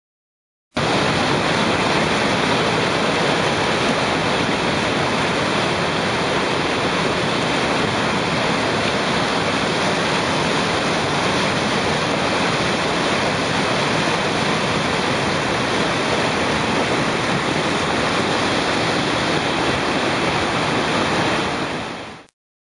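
Flood-swollen Credit River rushing through rapids and over a waterfall: a steady, loud wash of white water. It starts about a second in and cuts off suddenly near the end.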